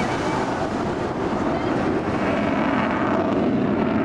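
Avro Vulcan XH558 in flight, its four Olympus turbojets heard as a steady, even jet noise, with wind on the microphone.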